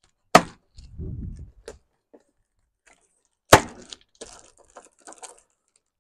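Cardboard shipping box being handled and opened with a knife: two sharp knocks about three seconds apart, with crackling and scraping of cardboard and packing tape after the second.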